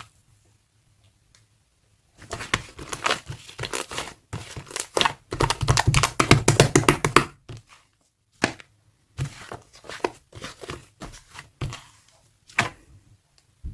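Slime clay being squished and stretched by hand: dense sticky crackling and popping for a few seconds starting about two seconds in, then scattered single pops and snaps.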